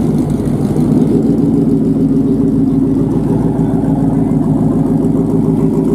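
A car engine running steadily at low revs, close by, with a slight rise in pitch about a second in.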